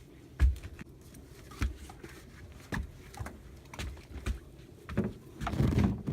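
A handful of short knocks and thumps, roughly one a second, the loudest about half a second in, with a busier cluster of knocks near the end.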